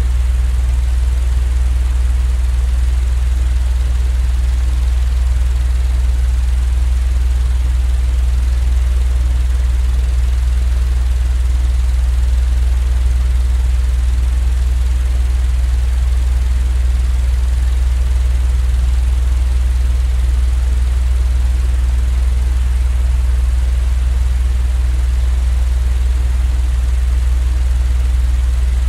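Steady, unchanging low droning rumble with a soft even hiss above it, like a fan or machine noise track used for sleep. There are no clacks, beats or changes.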